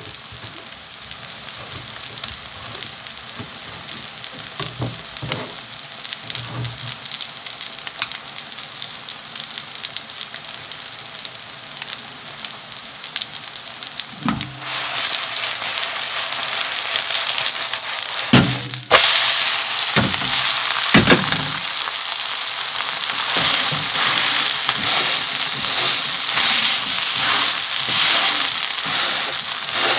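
Soft-tofu and zucchini pancake batter frying in oil in a pan, with a steady sizzle that grows louder about halfway through and louder again a few seconds later. A few sharp knocks come around the middle.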